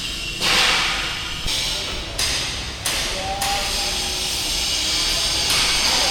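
Pressurised spray hissing in a series of bursts of about a second each, starting and stopping sharply.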